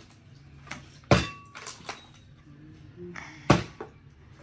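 Two hard thunks, about a second in and again about two and a half seconds later: a plastic water bottle being flipped and landing on a hard surface. Each thunk has a short ringing tail.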